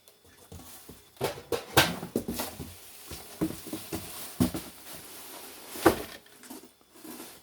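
Irregular knocks and clatter in a small room, the loudest about two seconds in and again about six seconds in.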